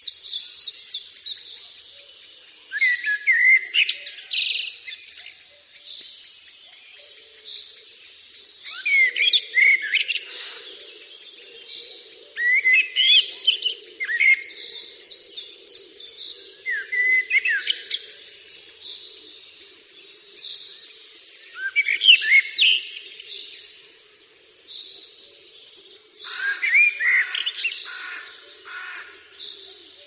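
Songbirds singing: bursts of high chirps, quick slurred whistles and trills every few seconds, over a faint steady low hum.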